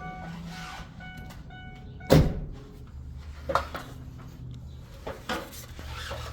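A running engine hums steadily under a repeating electronic warning chime that stops about a second and a half in. About two seconds in comes one loud thump, with lighter knocks a few seconds later, as someone climbs out of the raised 2004 Ford Explorer.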